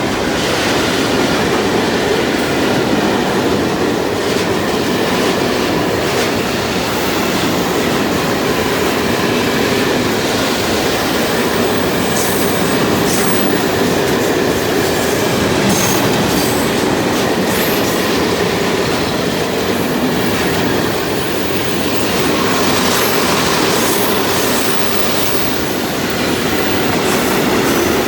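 Train wagons rolling past close by: a steady rumble of steel wheels on the rails, with clicks over rail joints and some high wheel squeal.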